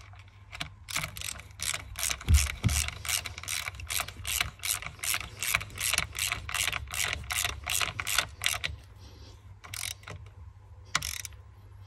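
Hand ratchet wrench clicking in a quick, even rhythm of about three clicks a second, running down a sleeve nut by the gearbox mount. The clicking stops after about eight seconds, and two single clicks follow near the end.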